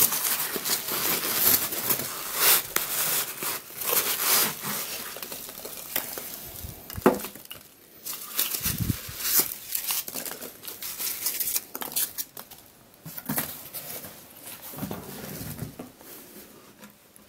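Rustling and crinkling of bubble wrap and foam packing peanuts being handled while a bubble-wrapped block is lifted out of a cardboard box, with a sharp knock about seven seconds in. The rustling grows fainter toward the end.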